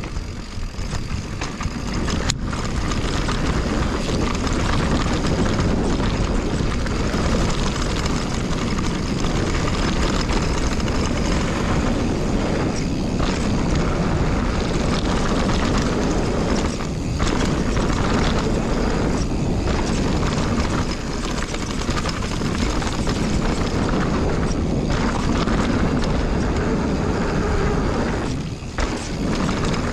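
Steady loud rush of wind buffeting a chest-mounted action camera and mountain bike tyres rumbling over a dirt trail on a fast descent. A sharp click comes about two seconds in, and the noise eases briefly a few times, the longest lull near the end.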